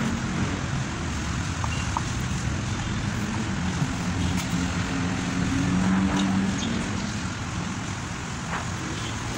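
Steady vehicle engine and traffic noise, with a low hum that wavers and swells about halfway through. A few faint clicks of a hand tool on the cylinder head are heard within the first four seconds.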